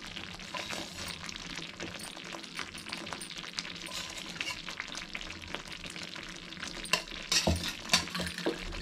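Thick bread halwa of bread, sugar and water bubbling and sputtering as it cooks down in a nonstick kadai, with a lump of ghee melting into it. A few louder knocks near the end as the wooden spatula stirs against the pan.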